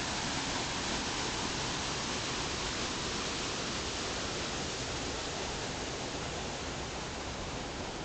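Steady, even rush of water from a rocky mountain stream flowing over stones.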